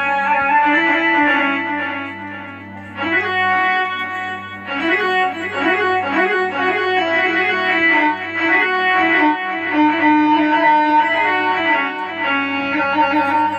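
Keyboard rebab sound from a Korg Triton set, playing an ornamented ataba/mawwal-style melody over a steady low drone. A short dip comes about two and a half seconds in, and the melody then moves in quick ornamented runs.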